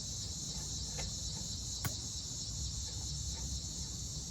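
Steady high-pitched chirring of insects, with a couple of faint clicks, about one and two seconds in, from parts being handled at the brake.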